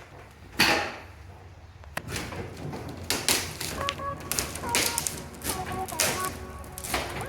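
Sharp knocks and clattering from work on a glued-in truck windshield, one loud hit about a second in, then a quick run of clicks and knocks. Light background music comes in about halfway through.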